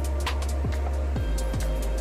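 Corporate-style background music with a steady beat: a kick drum about twice a second over a sustained bass line, with occasional sharp snare-like hits.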